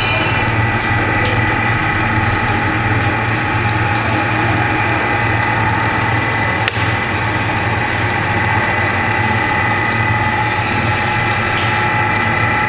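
Salmon pin bone remover running steadily: an even mechanical hum with a few held higher tones over a hiss. One short knock about halfway through.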